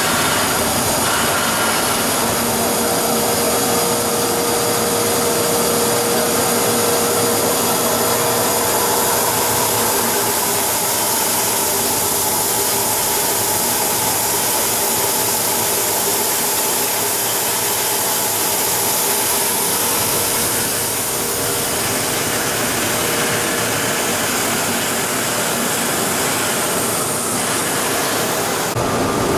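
YDN-85 plastic film recycling and pelletizing line running: a loud, steady mechanical din of its motors, blowers and extruder, with a faint steady hum in it.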